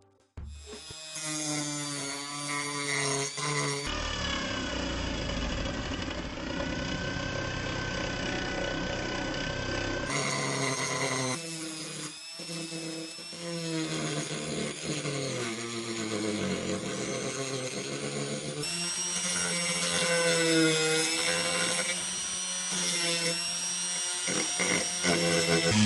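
Hand-held power tools running in a string of short edited clips, their motor whine rising and falling as they work.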